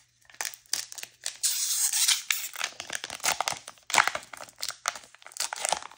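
A trading-card booster pack's shiny plastic wrapper being torn open and crinkled by hand, in a run of short crackling rips and rustles with a longer tearing stretch about a second and a half in.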